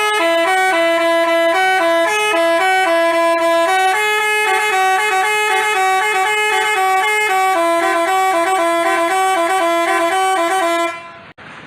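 Basuri telolet bus horn playing a quick melody of stepped, buzzy horn notes that stops abruptly about eleven seconds in.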